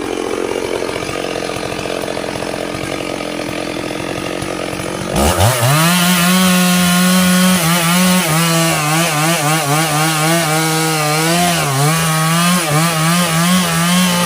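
Stihl two-stroke chainsaw idling, then throttled up about five seconds in and held at high revs cutting into a sengon log, its pitch wavering and dipping as the chain bites. Near the end the throttle is released and the engine note falls away.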